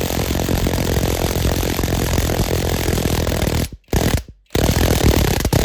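Power impact wrench hammering steadily as it turns the centre bolt of a homemade puller, drawing a worn rear axle hub off a garden tractor's axle. The trigger is let off twice for a moment past the middle, with a short burst between, before it hammers on again.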